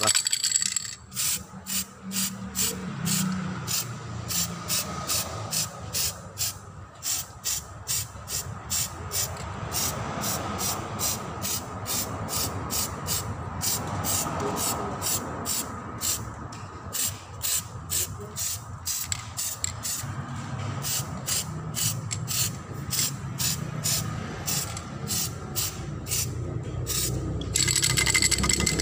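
Aerosol spray can of metallic silver paint spraying onto an alloy wheel. A short continuous hiss is followed by a long run of quick, evenly spaced short hisses, about two a second, as the paint goes on in light bursts.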